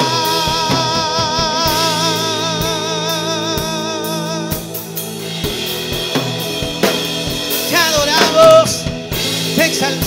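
Live church worship band with drum kit playing. A man's voice holds one long sung note with a wide vibrato for the first four or five seconds, and a short sung phrase comes back about eight seconds in.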